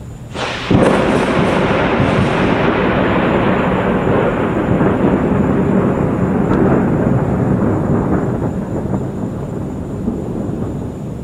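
Thunder from a lightning strike: a sudden sharp crack about half a second in, crackling for a couple of seconds, then a long rumble that slowly fades. No rain is falling.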